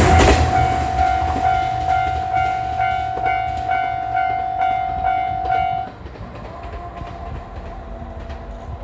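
Japanese level-crossing alarm ringing in steady pulses, about two a second, over the low rumble of the departing KiHa 121 diesel railcar. About six seconds in the ringing drops away sharply, leaving a fainter, slightly lower tone.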